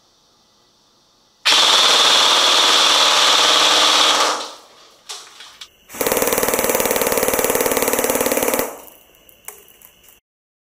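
G&G PCC45 airsoft electric gun (AEG) firing two long full-auto bursts, each about two and a half seconds, as a rapid even buzz of its gearbox cycling. A few faint clicks come in the pause between them.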